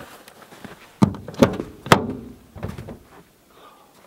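Toyota FJ Cruiser door being opened: three sharp clunks from the latch and door between about one and two seconds in, then a few softer knocks.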